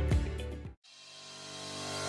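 Background music: one track fades out to a brief silence under a second in, then the next track swells in gradually, growing louder.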